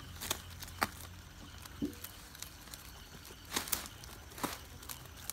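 Goat kids tearing at and chewing broad leaves: rustling with a handful of sharp, irregular crackles and snaps, over a low steady hum.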